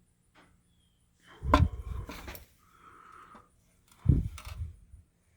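Two dull knocks with a brief clatter after each, about a second and a half in and again about four seconds in, like objects being handled or set down.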